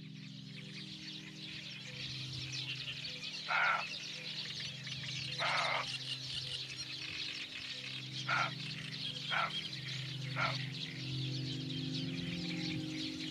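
Birds at a lakeshore at dawn: a dense chorus of high twittering, cut by five short, louder calls, the second one longer, over soft sustained ambient music.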